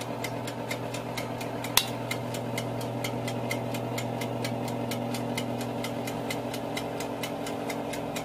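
Electric oven running: a steady motor hum with fast, even ticking, about four ticks a second, and one sharper click about two seconds in.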